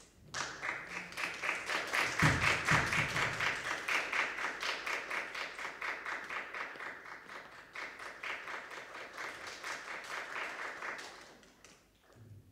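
Audience applauding, dense clapping that starts about half a second in and dies away near the end, with a low thump a couple of seconds in.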